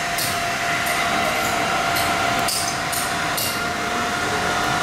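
Steady hum of running mask-making machinery with a constant mid-pitched whine, broken by a few short hissing bursts.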